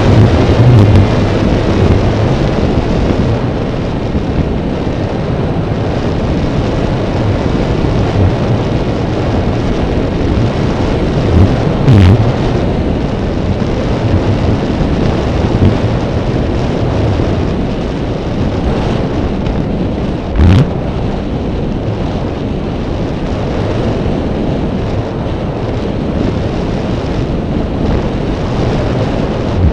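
Steady rush of airflow over the onboard camera's microphone on a Raptor RC glider in flight, with brief heavier buffets about 12 and 20 seconds in.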